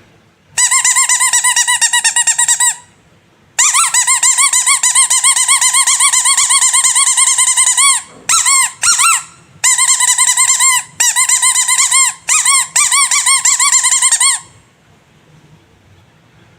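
Squeaky rubber animal toy squeezed over and over, giving a shrill, fast-wavering squeak. It comes in runs of two to four seconds, broken by a few short single squeaks, and stops about fourteen seconds in.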